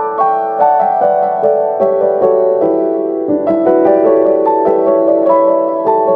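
Soft background piano music, a slow melody of single plucked-sounding notes over held chords.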